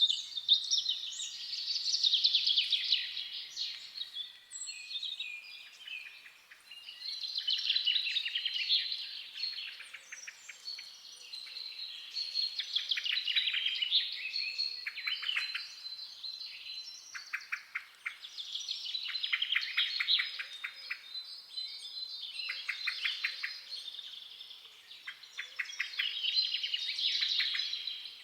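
Forest songbirds singing: bursts of rapid trills and chirps, phrase after phrase every few seconds.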